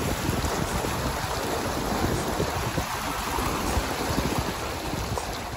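Car driving through deep floodwater: a steady rushing and sloshing of water pushed aside by the car, over a low rumble.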